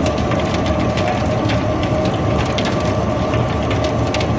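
Sawdust pellet mill running in production: a steady mechanical hum with a constant tone, overlaid by a dense crackle of small clicks and snaps.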